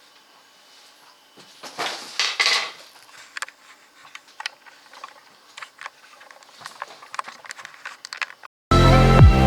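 Scattered light clicks and knocks of small hard objects being handled, with two louder scraping rustles about two seconds in. Loud electronic music with a steady beat starts abruptly near the end.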